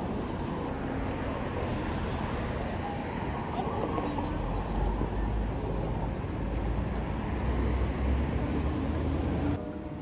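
Road traffic: a steady wash of passing cars with a low engine rumble that swells from about halfway in, then cuts off suddenly just before the end.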